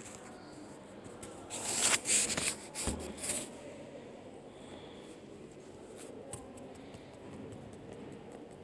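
Rustling handling noise in a few short bursts about two seconds in, followed by faint light clicks.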